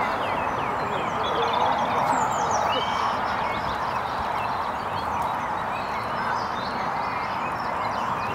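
Many small birds chirping and calling, with short quick notes scattered throughout, over a steady rushing background noise.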